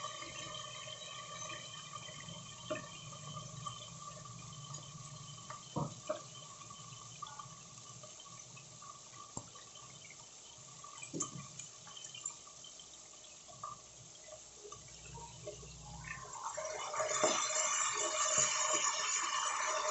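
Pork steaks frying in a pot of hot oil: a steady sizzle with scattered crackles and pops. About 17 seconds in the sizzle grows louder as a steak is turned over with tongs.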